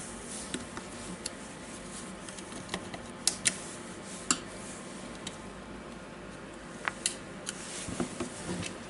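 Scattered small clicks and taps of a screwdriver working the carbon brushes and their springs out of the brush holder of a Makita DDF456 drill motor. The sharpest clicks come a little after three seconds, at about four seconds and around seven seconds.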